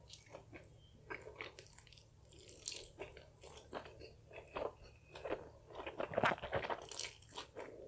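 Slurping and chewing of Nongshim black bean ramen noodles, heard close up: a dense run of short sticky mouth sounds, loudest about six seconds in.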